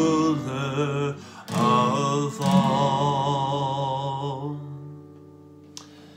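A man singing a song with guitar accompaniment. He holds the final note with vibrato and lets it and the guitar fade out in the second half.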